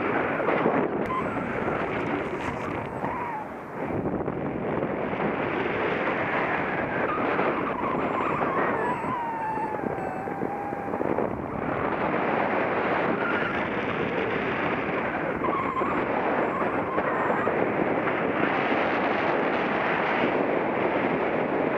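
Rushing wind buffeting the microphone of a camera flying under a paraglider, a loud steady rush. A faint whistling tone slides down in pitch around the middle.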